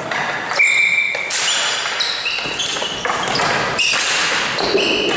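Ball hockey game play: sneakers squeaking in short high chirps on the playing surface, with sticks and ball clattering in quick sharp knocks.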